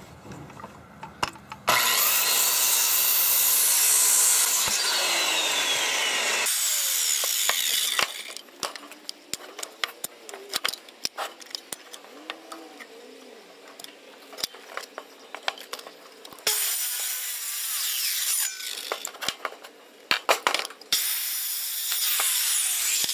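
Corded Skilsaw circular saw running and crosscutting a 2x4 wall stud: one long cut of about five seconds, then two shorter cuts near the end. Clicks and knocks of wood blocks being handled come between the cuts.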